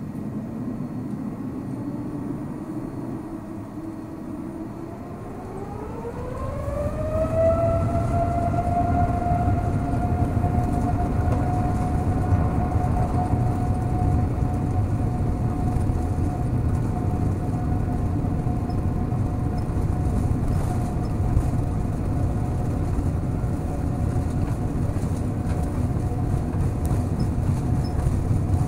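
Boeing 787-9's GEnx jet engines spooling up to takeoff thrust, heard from inside the cabin. A steady engine whine rises in pitch about five to eight seconds in, then holds steady over a growing low rumble as the takeoff roll gets under way.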